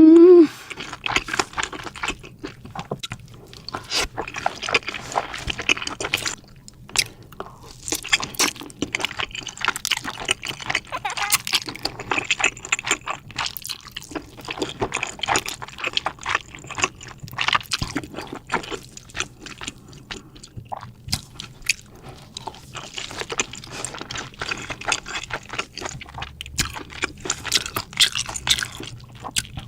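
Close-miked eating: a person crunching, biting and chewing food, with wet mouth and smacking sounds, in a dense run of crackles and clicks. Right at the start there is a brief loud rising vocal squeal.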